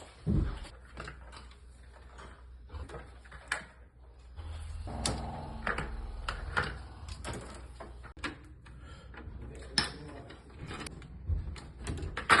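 Scattered clicks and knocks of tools and clamp hardware being handled, over a low steady hum that comes in a few seconds in.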